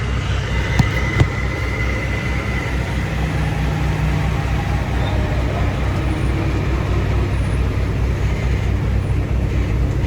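Semi truck's diesel engine idling steadily with a low, even throb, and two short clicks about a second in.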